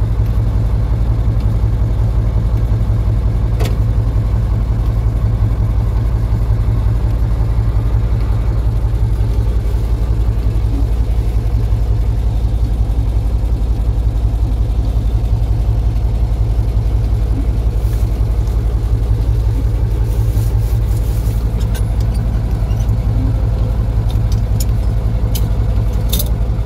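Vehicle engine and drivetrain running steadily at low speed, heard from inside the cabin as a loud, even low drone, with a few sharp clicks and knocks from the vehicle being jolted on a rough dirt track.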